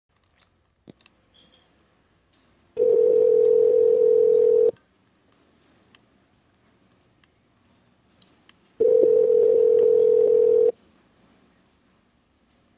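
Telephone ringback tone heard down a phone line while an outgoing call waits to be answered: two steady rings of about two seconds each, with a four-second gap between them, in the North American on-off pattern. Faint clicks in the gaps.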